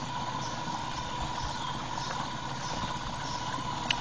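Small electric drive motor of a Solar Breeze robotic pool skimmer running steadily, a constant hum with a steady tone. A single sharp click near the end.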